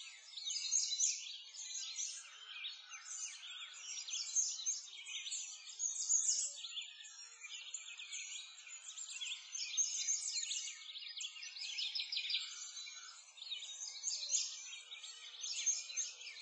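A chorus of many songbirds chirping and trilling together in quick, overlapping high notes, without a break.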